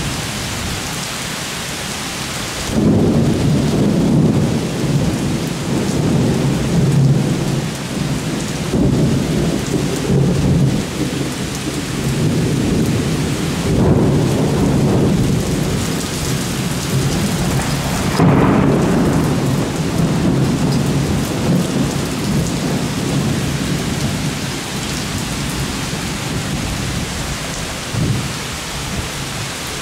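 Heavy rain falling steadily, with thunder: a low rumble breaks in about three seconds in and rolls on, swelling several times, with a sharper clap about eighteen seconds in, then easing near the end.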